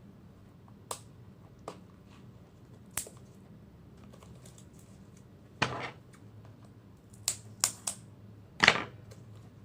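Scattered sharp clicks and taps from a small cardboard product box being handled and prised at, with two short rubbing scrapes, one about halfway through and a louder one near the end, as someone works out where the box opens.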